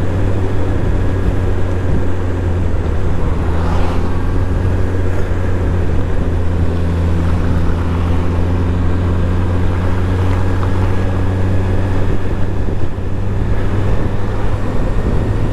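Motorcycle engine running steadily while riding, a constant low drone that holds an even pitch, over a haze of road and wind noise.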